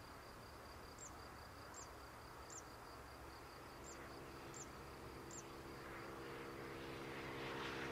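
Faint steady insect buzz with short high chirps every second or so. From about halfway, a low hum from the Airbus A350's jet engines grows steadily louder as the aircraft rolls along the runway.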